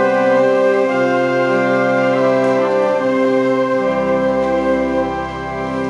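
Church choir with organ accompaniment holding long sustained chords, changing chord a few times, with a deep bass note entering about four seconds in.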